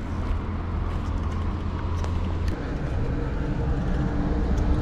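Traffic on the road alongside and the ride itself give a steady low rumble of road noise. A faint steady hum joins about three seconds in.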